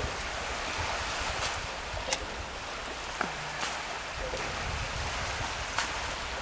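Small sea waves washing steadily onto a sandy beach, with a low rumble of wind on the microphone and a few sharp clicks.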